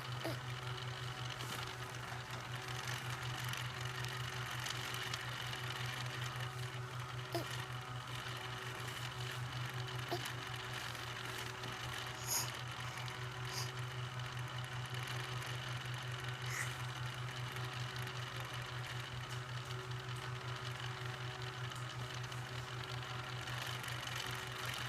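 A steady low buzz from a small motor or vibrating device, with a fast even flutter. A few brief faint sounds occur over it, the clearest about twelve seconds in.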